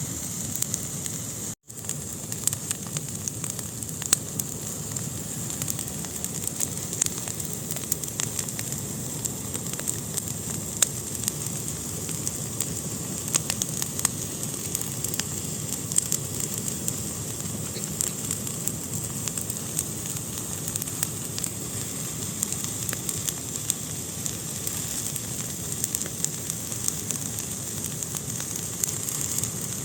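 Wood fire burning in a fireplace: a steady hiss with frequent sharp crackles and pops throughout. The sound cuts out for an instant about a second and a half in.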